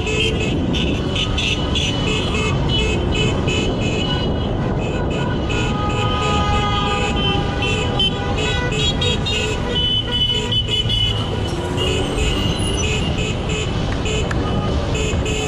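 Many car horns honking in quick repeated toots, with some longer held blasts, over a steady rumble of slow street traffic: celebratory honking in a jammed street.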